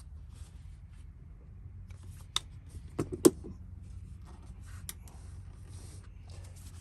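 A few sharp clicks and knocks of small hard objects being handled. The loudest comes about a third of the way in, and faint rustling runs between them.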